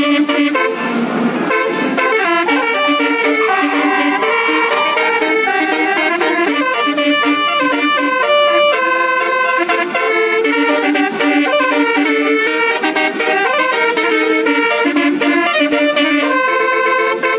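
Bus telolet musical air horn of the Basuri type playing a quick melody of held notes that step up and down, several tones sounding at once.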